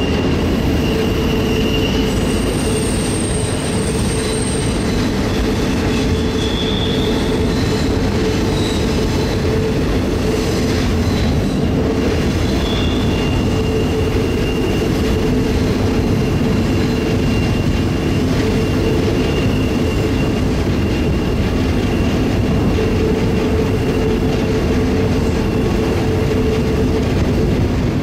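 Freight train rolling, heard from aboard a car: a steady loud rumble of steel wheels on rail with a steady hum. A thin, high wheel squeal rises over it a few seconds in.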